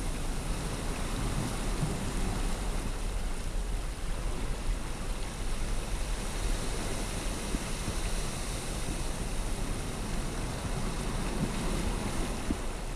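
Ocean surf washing across a rocky shore and churning inside a seawater-filled rock sinkhole: a steady rushing of water.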